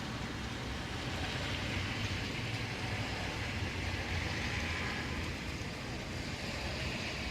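Steady hiss of rain and traffic on wet streets, with a low rumble underneath.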